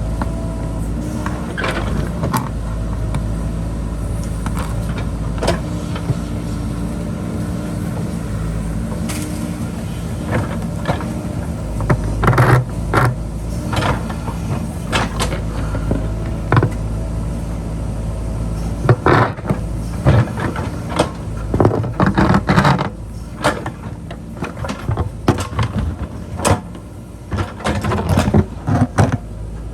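JCB backhoe loader's diesel engine running steadily under load. From about a third of the way in it is joined by repeated sharp clanks and knocks, more frequent near the end, from the bucket striking rock and soil as it digs into the hillside.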